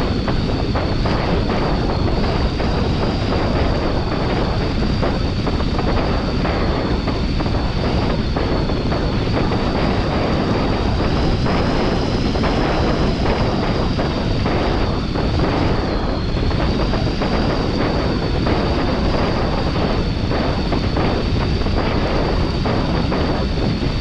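Wind rushing over the microphone of a paraglider in flight: a loud, steady roar of airflow that never lets up, with a faint, steady high whine above it.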